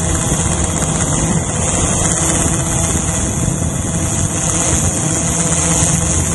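Small drone's electric motors and propellers running steadily in flight, picked up by a camera on the drone itself: an even buzz under a strong high whine.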